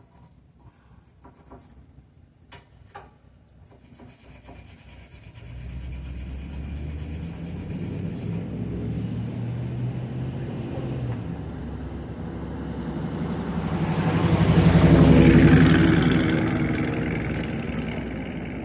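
Faint scraping and clicking of metal on the truck's battery cables, then a heavy vehicle's rumble that builds from about five seconds in, swells loudest near the end and begins to fade.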